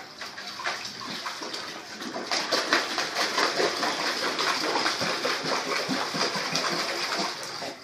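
Water splashing and sloshing in a basin, loud and continuous, growing louder about two seconds in and stopping abruptly near the end.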